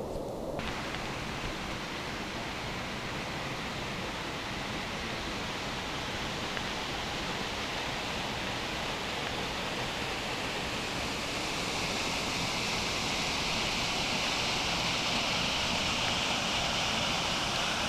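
Rushing water from a waterfall or stream: a steady hiss that begins abruptly just after the start and grows louder and brighter from about ten seconds in.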